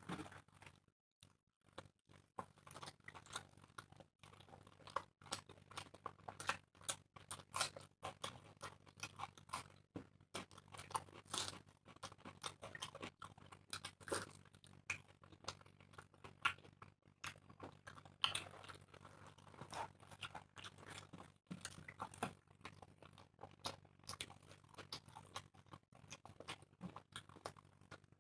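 People eating fast at close range: irregular wet chewing and mouth smacks with occasional crunches, over a faint steady hum.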